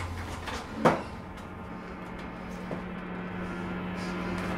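A single sharp knock about a second in, then a fainter click, over a low steady hum that sets in shortly after the knock.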